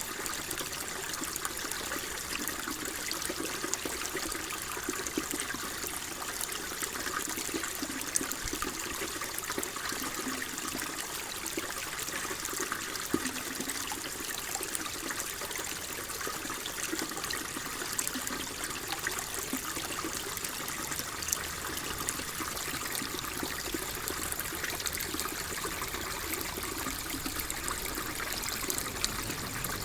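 Water flowing and trickling steadily, a continuous splashy babble with small irregular spikes.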